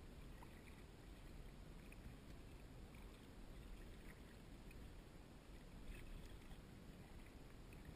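Near silence: faint water lapping and soft paddle dips around a gliding sea kayak.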